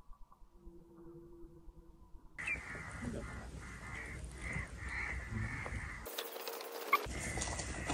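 Quiet at first. From about two and a half seconds in, a bird calls over and over, about two calls a second, over steady outdoor background noise.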